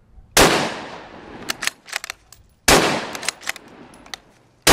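A .223 Ruger American Predator bolt-action rifle firing: two shots about two seconds apart and a third right at the end, each sharp crack followed by a long fading echo, with short clicks between the shots.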